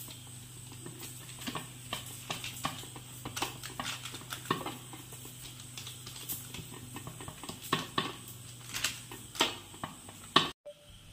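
Fingers and palm patting and pressing a soft, oiled, green-gram-stuffed maida dough round flat on a plastic sheet: irregular soft slaps with crinkles of the plastic, over a steady low hum. The sound cuts off abruptly near the end.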